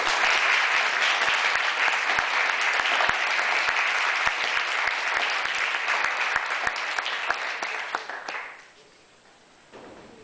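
Audience applauding, fading away about eight and a half seconds in.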